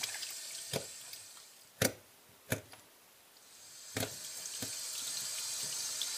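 Kitchen tap running into a stainless steel sink, dying away about a second in; a few sharp knocks of the fish and hands against the sink follow, then the tap comes on again about four seconds in and water runs over the pike as it is rinsed.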